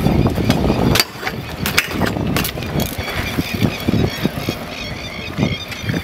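BMX bike rolling on a concrete skatepark surface, the tyre rumble heavy at first and dropping away about a second in, followed by scattered sharp clicks and knocks from the bike and its wheels on the concrete.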